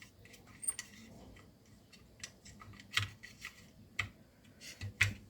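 Scattered light clicks and taps of a small circuit board and plastic housing being handled and fitted together, the sharpest about three and five seconds in.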